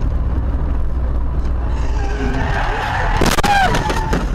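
Steady road and engine rumble heard from inside a car, then tyres skidding and squealing in a sudden emergency and a quick series of sharp impacts about three seconds in: a road crash or near-collision.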